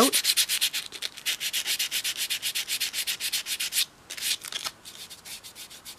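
Hand sanding of spackling filler on a doll's head: quick, even rasping strokes for about four seconds, then a few slower, scattered strokes that stop about five seconds in.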